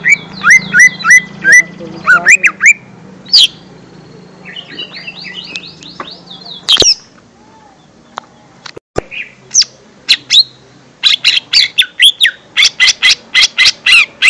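Lesser green leafbird (cucak ijo mini) singing: runs of sharp chirps and quick sweeping whistled notes, softer and faster in the middle, with a lull, then a fast run of loud chirps near the end.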